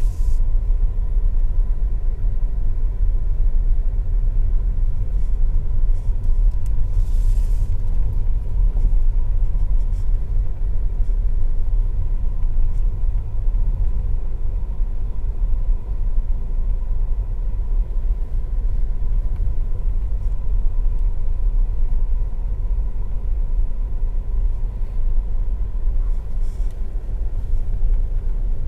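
Steady low road and engine rumble inside a Ford EcoSport's cabin as it is driven, with a brief hiss about seven seconds in.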